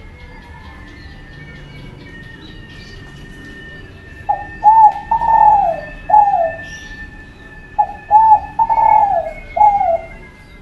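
Spotted dove cooing: two full song phrases, each a short opening coo followed by a few longer coos, one of them falling in pitch. Faint high chirping runs underneath.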